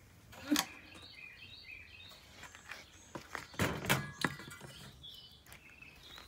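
Birds chirping repeatedly in short high notes, with a few sharp knocks and clatters, the loudest a cluster a little past halfway.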